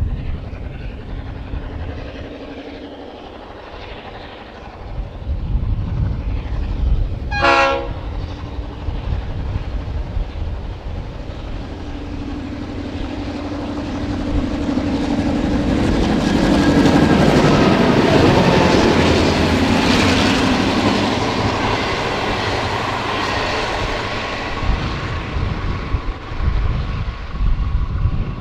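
Two Clyde-built EMD diesel-electric locomotives, GM10 and S303, with their two-stroke V16 engines working as they approach, pass and draw away with their carriages. The sound builds to its loudest about 17 to 20 seconds in, with wheels clattering over the points, then eases off.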